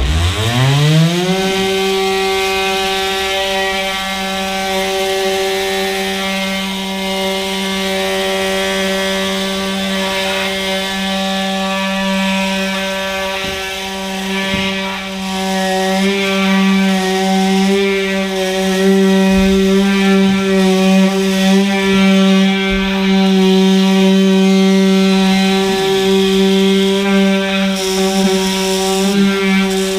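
Cordless oscillating multi-tool starting up, its pitch rising for about a second, then running at a steady buzz as its blade cuts through the urethane bead holding a truck's rear slider window glass; the level wavers a little as it works along the frame.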